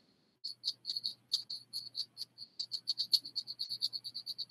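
A strip of sandpaper wrapped around a fingertip, gently sanding a small papier-mâché figure: quick, short scratching strokes, about seven a second, starting after a brief pause.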